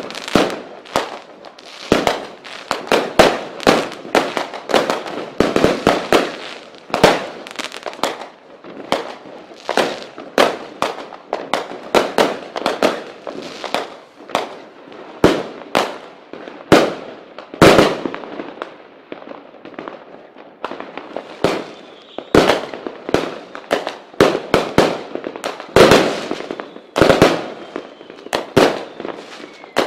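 Fireworks and firecrackers going off in a dense, irregular run of sharp bangs and crackles, two or three a second, some reports much louder than the rest.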